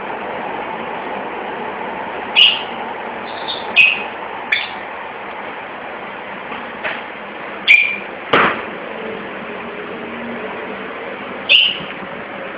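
Pet lovebirds giving short, shrill chirps, about six of them spaced irregularly.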